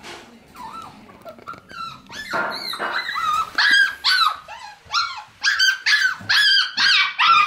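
A puppy shut in its crate, whining and yapping: short high calls that start faint and grow louder, coming about two a second in the second half.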